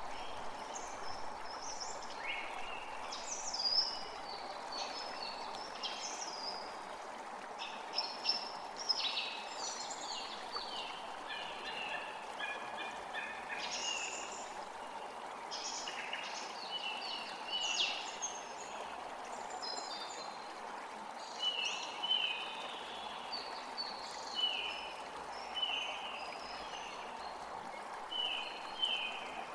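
Birds singing and calling, many short high chirps and trills overlapping, over a steady rush of running water.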